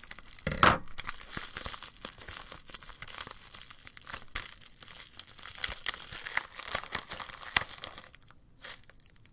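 A small white package's wrapping crinkling and tearing as it is snipped with scissors and pulled open by hand, a dense run of irregular crackles with a sharper crunch a little over half a second in.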